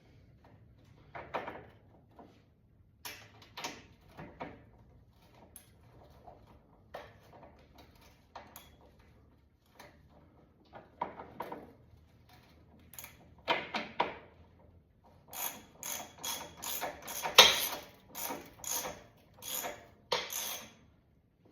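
Hand tools working metal fasteners on a motorcycle engine: scattered clicks and taps, then a quick run of sharp clicks in the last few seconds, ratchet-like.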